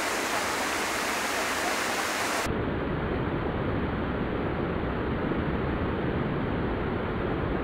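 Steady rushing noise. About two and a half seconds in, the high hiss cuts off abruptly and a deeper rumble remains.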